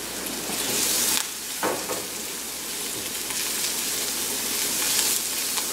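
Garlic, onion and cilantro sizzling in a small nonstick skillet as a silicone spatula stirs and scrapes through them, with a short knock of the spatula against the pan about a second and a half in.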